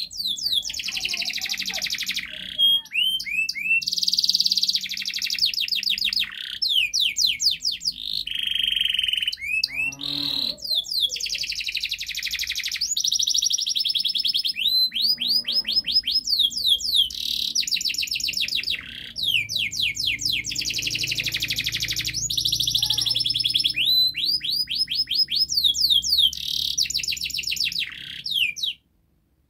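Domestic canary singing a long, unbroken song of fast trills and rolls, with phrase after phrase of rapidly repeated notes. It stops suddenly near the end.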